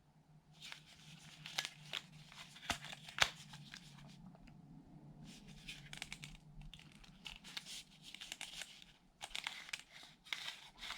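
Rustling and crinkling handling noises with several sharp clicks, over a faint steady low hum.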